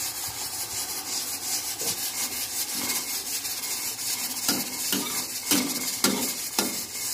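Metal spatula scraping and stirring chopped leafy greens around a steel wok, with sharp scraping strokes about twice a second in the second half, over a steady hiss.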